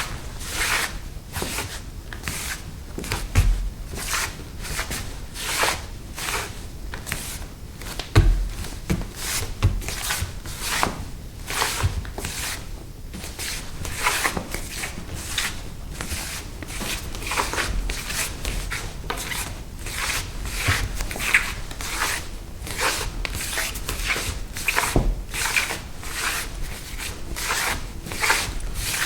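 Bare feet scuffing and sliding on a wooden floor: a long run of short rubbing scuffs, roughly one or two a second, with an occasional low thud of a footfall.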